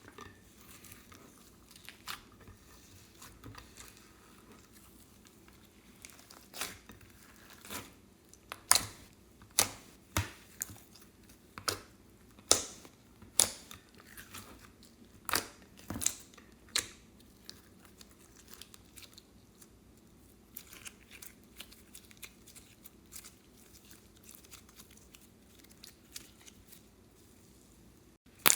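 Clear slime being worked by hand, giving a run of sharp pops and clicks as air pockets burst, over quieter fine crackling. The pops cluster in the middle stretch, about one or two a second, then thin out to faint crackles.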